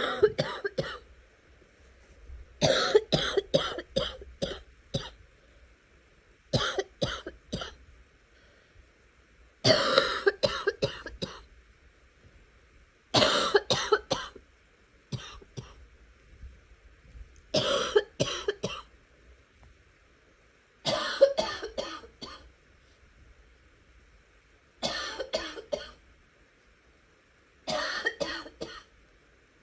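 A sick person coughing in rapid fits of about three to six quick, harsh coughs each, with a fit roughly every three to four seconds and short pauses for breath between.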